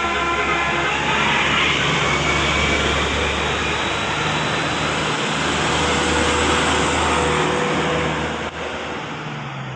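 A large bus passing close by: a loud, steady rush of engine and road noise over a low engine hum, easing off near the end. The last notes of its multi-tone telolet horn tune cut off right at the start.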